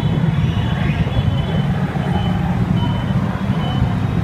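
Dense street traffic with engines running steadily, and a few short high beeps about two and three seconds in.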